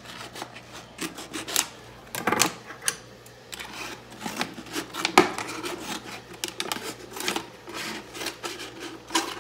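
Thin plastic water bottle being cut open by hand, the plastic crackling and crinkling in irregular clicks and scrapes.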